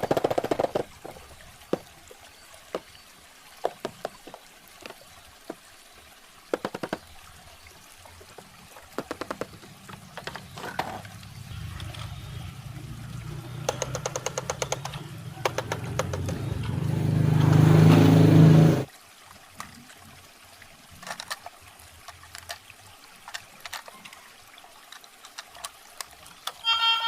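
Scattered light clicks and taps of a toy and its packaging being handled. Running water builds up from about halfway through, grows louder, and cuts off abruptly a little after two-thirds of the way in.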